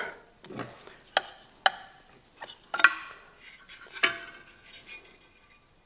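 Metal clicks and clinks as the blade guard is worked loose and lifted off an old Rockwell 368 circular saw with a screwdriver: about half a dozen sharp knocks at uneven times, a couple of them ringing briefly.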